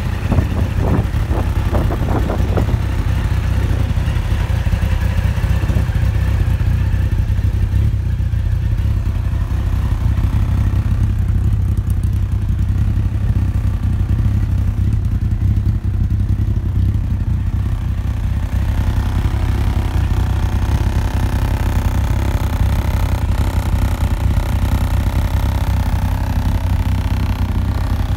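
Yamaha XJR1300's air-cooled inline-four engine idling steadily through aftermarket exhausts. A few light knocks come in the first few seconds.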